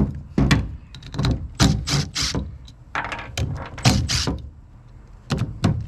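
Cordless impact driver running in short, stop-start bursts as it backs the screws out of an old oil pump's cover, about a dozen bursts.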